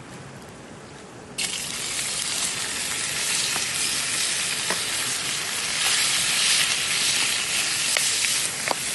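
Food frying over a campfire: a loud sizzle starts suddenly about a second and a half in as the food goes onto the heat, then keeps on steadily with scattered crackles.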